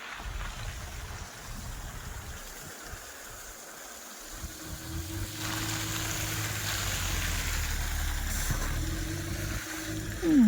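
A car engine running over a steady hiss, its low hum coming in about four seconds in and louder through the second half before easing off near the end.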